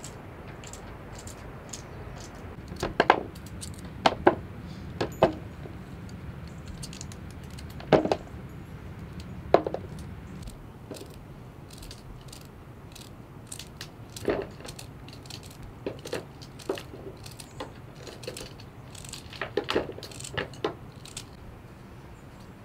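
Irregular sharp snaps and knocks of knives cutting fresh cauliflower and celery by hand: the blade tapping a wooden cutting board and crisp celery pieces snapping off into a plastic colander. The loudest snaps come a few seconds in, over a low steady background hum.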